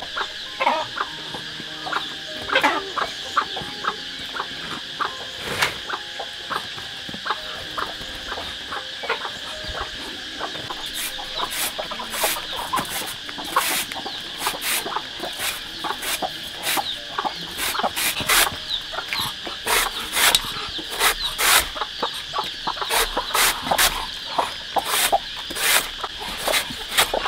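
Chickens clucking, over a steady high drone and many short sharp clicks that come thicker in the second half.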